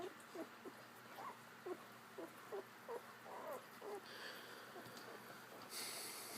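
Brittany puppy giving a run of short, high squeaks, about three a second, which stop about four seconds in. A soft rustle follows near the end.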